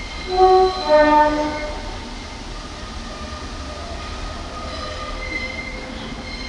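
Class 144 Pacer diesel multiple unit sounding its two-tone horn, a higher note then a lower one, about half a second in, as it pulls away. Faint high wheel squeal follows near the end.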